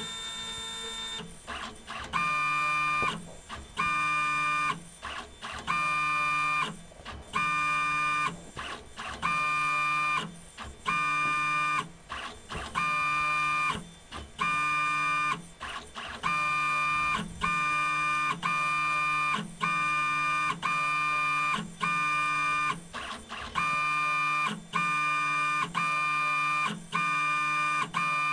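Motor of an automated pipetting robot whining in a steady on-off rhythm as it mixes a sample tube by repeated pipetting. Each burst lasts about a second at the same fixed pitch, and a new one starts about every 1.7 seconds.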